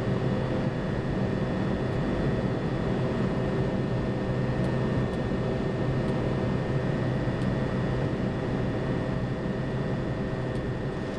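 Steady cockpit noise of a Boeing 737-200 climbing at about 250 knots: a constant rush of airflow over the flight deck with a low hum and a few held steady tones from its Pratt & Whitney JT8D turbofan engines.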